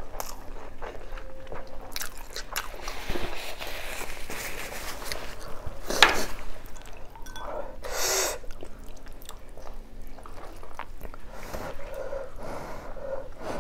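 Close-up eating sounds of a person eating boiled oxtail, rice and cabbage by hand: wet chewing and lip-smacking with scattered clicks. A sharp crunch comes about six seconds in, and a short hissing breath follows near eight seconds.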